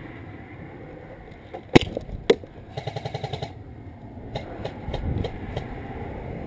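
Airsoft guns firing: two single sharp shots about half a second apart, then a short rapid full-auto burst about three seconds in, followed by scattered single shots.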